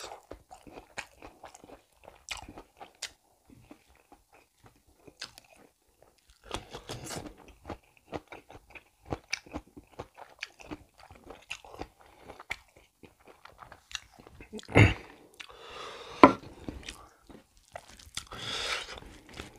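Close-miked chewing of rice and beef curry eaten by hand: irregular wet mouth clicks and smacks. A louder low thump comes about fifteen seconds in, with a sharp click a second later.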